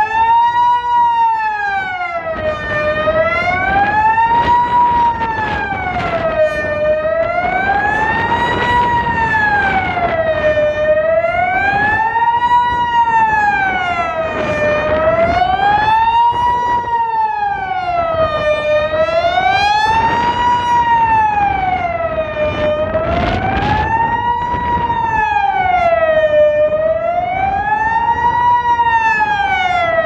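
Swiss civil-defence siren sounding the general alarm in a test: a steady wail rising and falling about every four seconds.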